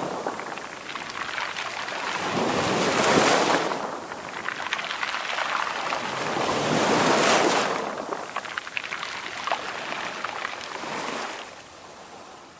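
Sea waves breaking, a surge of surf about every four seconds with a hissing wash in between, dropping off near the end.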